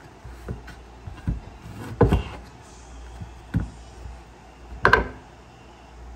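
Chef's knife cutting through an orange and knocking on a wooden cutting board: about four dull knocks, a second or so apart.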